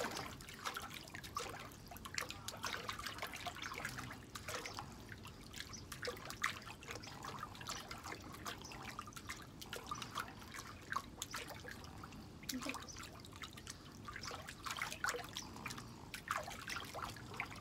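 Light splashing and dripping of pool water as a pug paddles its front legs in a shallow portable pool while being held up, many small irregular splashes.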